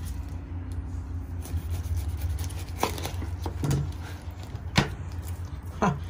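Knife cutting through a pineapple on a cutting board, with a few sharp knocks of the blade and fruit against the board, over a steady low rumble.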